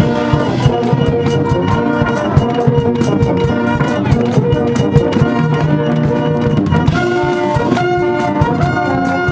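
School cheering brass band playing a fight tune: trumpets and trombones holding notes over steady drum beats.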